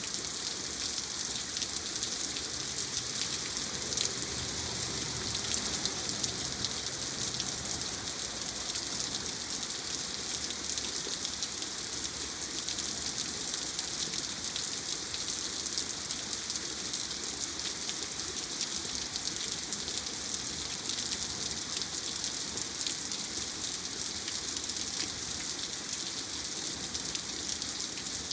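Steady heavy rain from a tropical storm, a dense even hiss with the patter of drops landing on surfaces.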